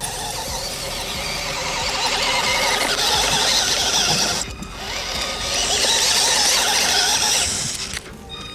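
Fayee FY003 RC crawler's small 180 brushed motor and plastic gear drivetrain whining under throttle as it climbs. It runs in two long stretches, with a short break about halfway and cutting off near the end.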